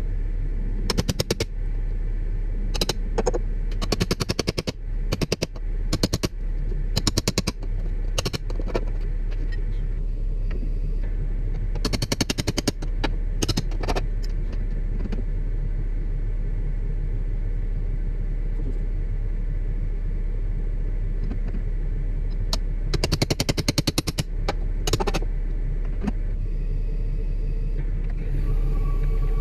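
Bucket truck's engine running steadily, with short bursts of rapid clicking that come again and again over the first twenty-five seconds or so.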